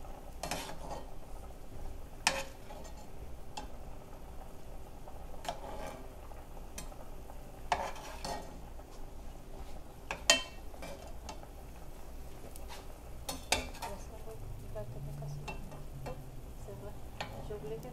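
A metal slotted spoon stirring and scraping in a cast-iron pot of boiling rice and vegetables, with a few sharp clinks of metal on pot, the loudest about 2, 8, 10 and 13 seconds in. The vegetables are being lifted out of the pot, and the liquid keeps bubbling underneath.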